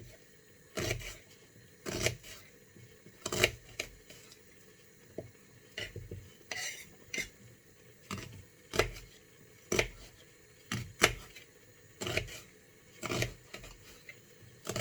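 Kitchen knife chopping an onion, each stroke knocking on the chopping board in slow, uneven strokes about one a second.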